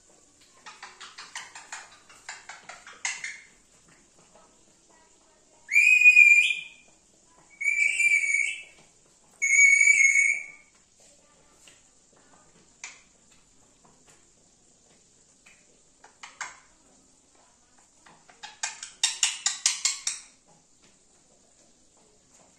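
Rose-ringed parakeet calling: a run of rapid chattering notes near the start, then three loud whistled calls about two seconds apart, and another quick burst of chatter near the end.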